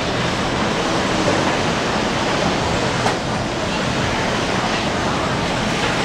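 Steady city street noise, mostly passing road traffic, an even roar with no distinct vehicle standing out, and a light click about three seconds in.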